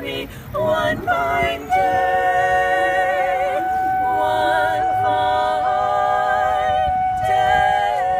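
Several voices singing unaccompanied, holding long notes together with vibrato, after a brief break near the start.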